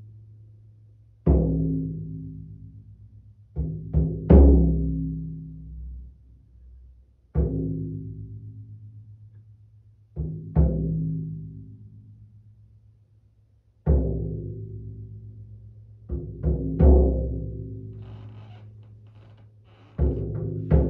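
A deep, resonant drum struck slowly and unevenly, single strokes a few seconds apart with a few quick pairs and a short cluster, each stroke ringing out with a low hum and fading away.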